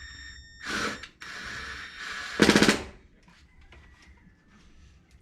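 Power drill driving a screw to fasten an accessory port to a truck bed cap: a short motor whine, bursts of drilling, and a loud, rapid rattle for about half a second near the middle.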